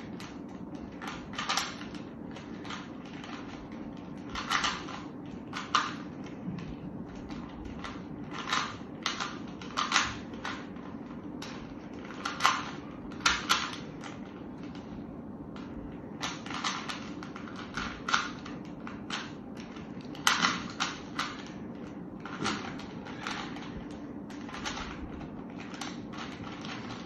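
Plastic Rubik's Cube being turned quickly by hand, its layers clicking and clacking irregularly in quick runs with short pauses, over a steady low hum.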